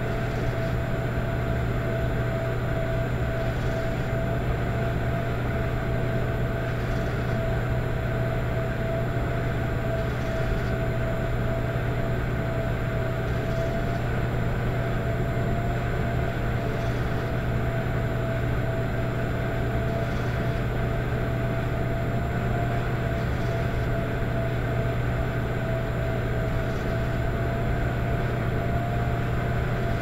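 Electric fireplace running, a steady electrical hum with a soft snoring noise coming round about every three seconds.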